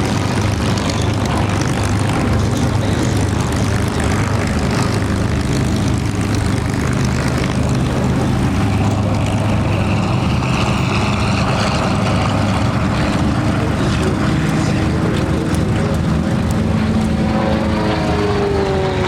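Piston engines of a propeller warbird running steadily, with a falling whine near the end.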